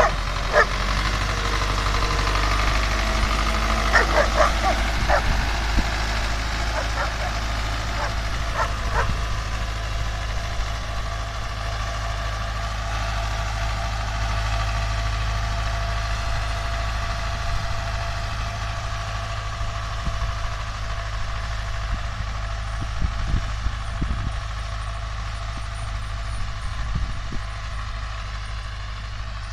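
Farm tractor engine running steadily under load as it pulls a mounted plough through the soil, growing fainter as it moves away. A dog yips several times in the first ten seconds.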